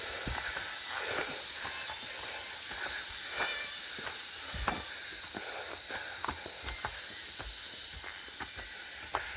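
Insect chorus in woodland: a steady, high-pitched buzz that swells a little about two-thirds of the way through, with scattered light taps and crackles underneath.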